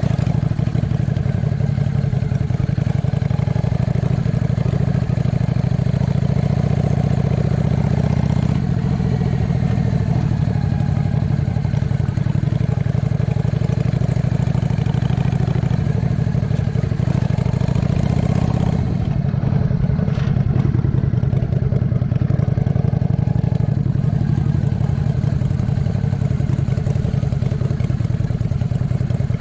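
An engine running steadily with a low, even hum; the higher hiss over it thins out about nineteen seconds in.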